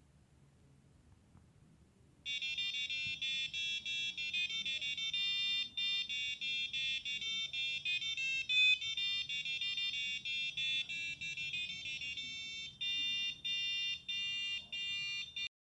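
Electronic buzzer of an STM32-based alarm clock playing its alarm as a melody of short, shrill beeping notes. It starts about two seconds in and cuts off suddenly near the end.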